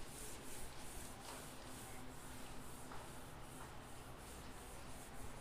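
Marker pen writing on a whiteboard: faint, repeated scratchy strokes, over a low steady hum.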